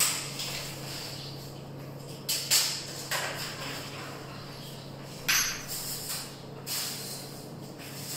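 A few short scrapes and rattles from a tape measure being handled against a window frame, over a steady low hum.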